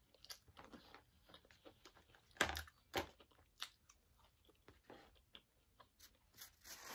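Close-miked chewing and crunching of food: soft mouth clicks throughout, with a few louder crunching bites about two and a half, three and three and a half seconds in.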